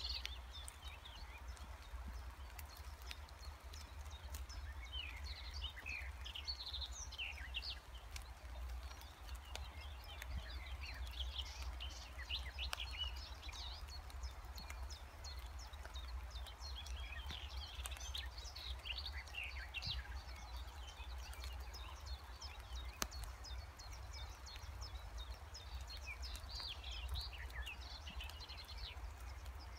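Several songbirds singing, many short chirps and trills throughout, over a low steady rumble. A single sharp click comes about two-thirds of the way through.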